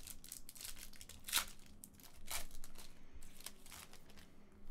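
Foil wrapper of a trading-card pack torn open and crinkled by hand: a run of short rips and crackles, the loudest about a second and a half in.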